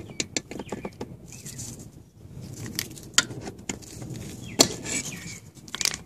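Irregular clicks and scrapes as needle-nose pliers and a plastic panel tool squeeze and pry a plastic wiring-harness anchor clip against a car seat's metal frame. The sharpest clicks come about four and a half seconds in and just before the end.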